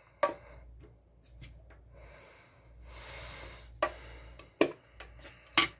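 Small metal mint tin, shut over burning dryer lint to smother it, handled on a cutting mat: a few sharp clicks and taps, the loudest near the end, with a soft rubbing sound in the middle.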